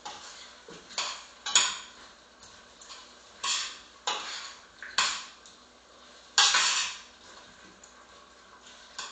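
A utensil scraping and clattering against a pan as cubed potatoes are stirred, in uneven strokes roughly a second apart. The longest, loudest stroke comes about two-thirds of the way through.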